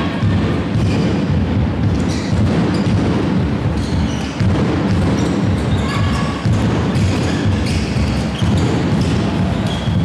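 Handball match play on an indoor court: the ball bouncing on the floor and players' shoes squeaking, echoing in the large sports hall.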